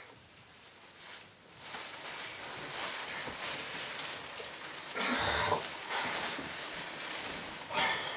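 Duvet and bedclothes rustling as a person sits up, throws back the covers and climbs out of bed, with a louder rustle about five seconds in and another near the end.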